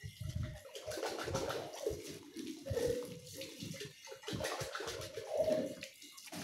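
Tap water running into and over a glass mug being rinsed by hand at a kitchen sink, splashing and sloshing unevenly as the mug is turned and tipped under the stream.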